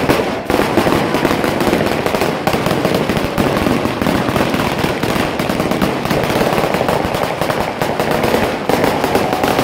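A traca, a long chain of firecrackers strung along a street, going off as a rapid, unbroken string of loud bangs.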